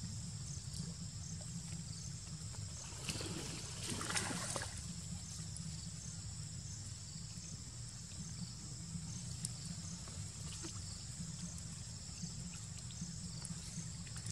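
Macaques wading and foraging in shallow marsh water: faint sloshing, trickling and rustling of wet plants, louder for a moment about three to four seconds in. Under it runs a steady low rumble.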